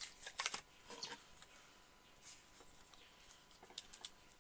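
Faint handling noise: a few light clicks and rustles, clustered about half a second and one second in and again near the end, as a round and rifle are handled.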